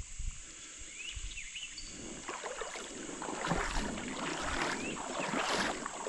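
Creek water splashing and rushing, growing louder about two seconds in, with wind buffeting the microphone and a steady high-pitched hum underneath.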